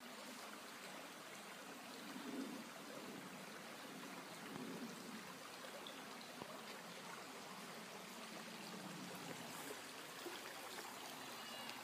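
Shallow creek running over rocks: a faint, steady rush and trickle of water.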